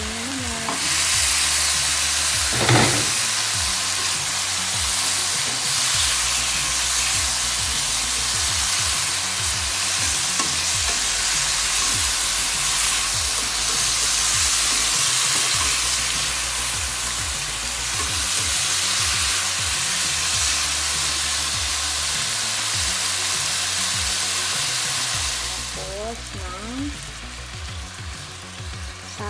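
Pork and chicken pieces sizzling in hot oil in a wok, with a spatula now and then knocking and scraping against the pan as the meat is turned. The sizzle is a steady hiss that eases off near the end.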